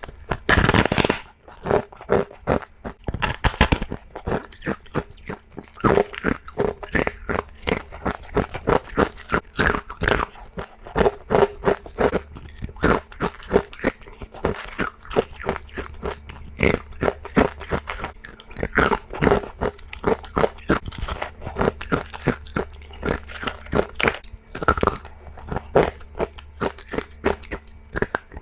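Ice being bitten and crunched in a rapid series of sharp, crisp bites, several a second, one after another.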